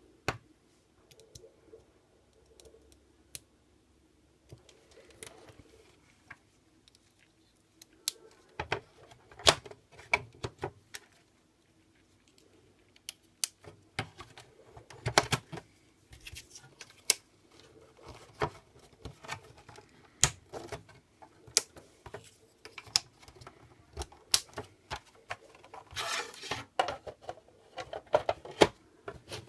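Irregular light clicks and knocks of small hard objects being handled, sparse at first and coming more often in the second half, with a short scraping rustle near the end.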